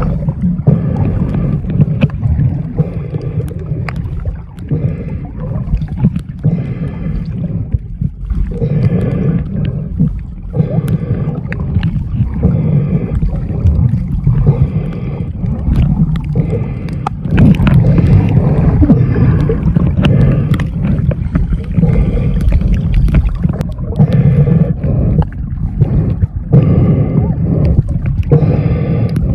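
Water noise picked up by a camera held underwater: a heavy, muffled low rumble with repeated swishing surges as it moves through the water.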